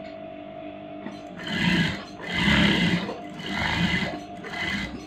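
Electric sewing machine stitching in four short runs, each speeding up and slowing down, as fabric is fed through along a neckline seam. A faint steady hum runs underneath.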